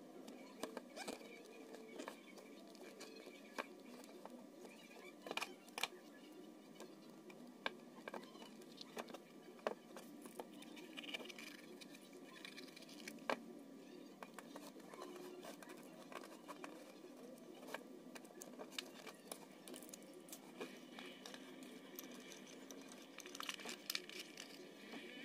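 Scattered light crinkling, taps and clicks from hands handling a foil-lined cardboard box and fitting a lamp socket inside it.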